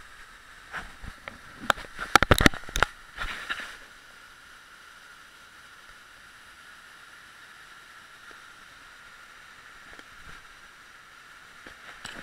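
Knocks, clatter and water sloshing around a small boat on cave water, loudest a little over two seconds in, then a faint steady hiss.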